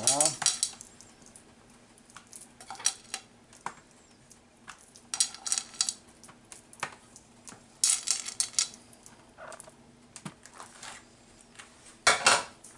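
Short bursts of clattering from a ceramic plate and a disposable aluminium foil pan every few seconds, as cubes of mozzarella are picked off the plate and dropped onto a lasagna.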